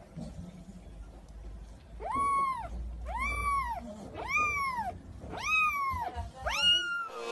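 Kitten meowing five times, about once a second, starting about two seconds in; each meow rises and then falls in pitch, and the last is shorter.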